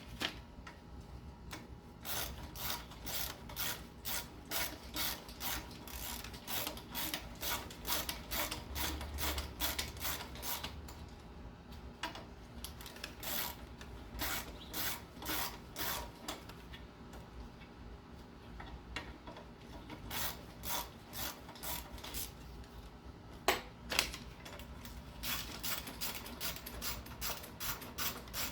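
Hand ratchet wrench clicking in long runs of quick, even clicks, about three a second, with pauses between runs, as bolts are turned out of a Nissan VG33E V6 engine. A couple of sharper knocks come near the end.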